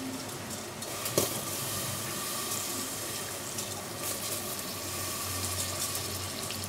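Hot onion and curd masala sizzling in a pressure cooker as handfuls of wet, washed basmati rice are dropped into it: a steady hiss, with one short click about a second in.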